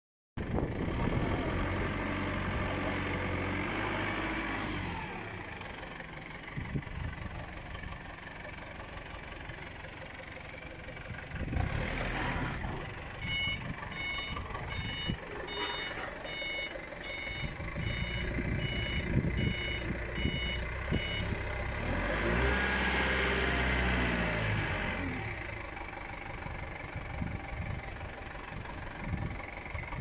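Forklift engine running and revving up and down as it carries IBC totes, with its reversing alarm beeping steadily, about one and a half beeps a second, for some eight seconds midway. The engine revs again about three-quarters of the way through.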